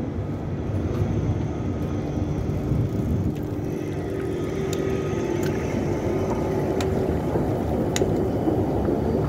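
Street traffic: a steady low rumble of buses and cars passing, with a faint steady hum through the middle and a few sharp clicks in the second half.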